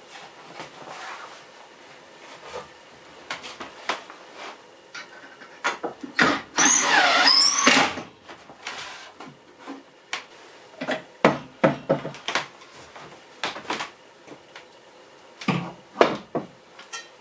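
Kitchen things being handled on wooden shelves: a series of knocks and light clicks. About six seconds in comes a loud scrape of about two seconds, with squeaky rising and falling pitches.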